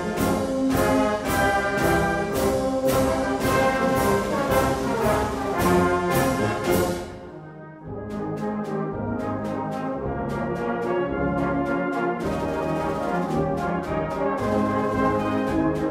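Brass band music with a steady beat, played by a school senior brass band. It dies away about seven seconds in, and a new, quieter passage starts about a second later.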